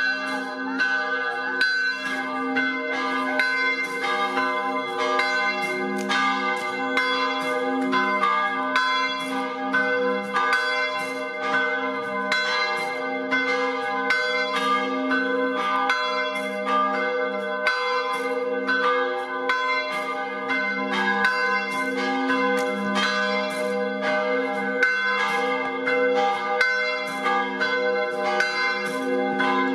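Several Italian church bells ringing together in a continuous peal, struck over and over at about two or three strokes a second, their tones overlapping and ringing on between strokes.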